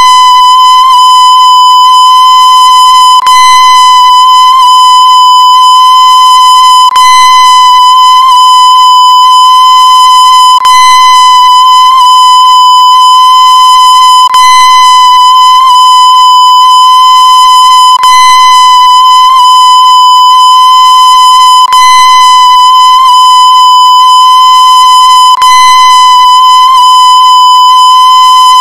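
Very loud, harsh electronic beep tone held steady without a break, with a short click about every three and a half to four seconds.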